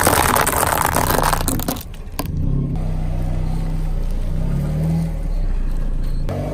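Car tyre rolling over dry fusilli pasta, crunching and crackling loudly for about the first second and a half. A sharp click follows, then a lower, steadier rumble as the tyre rolls over and squashes soft chocolate-coated ice cream bars.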